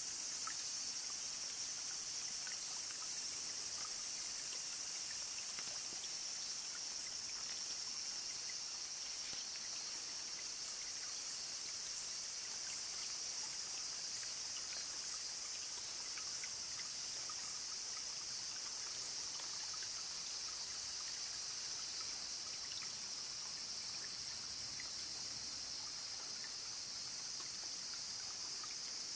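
A steady, high-pitched chorus of insects over the faint trickle of a small spring-fed stream.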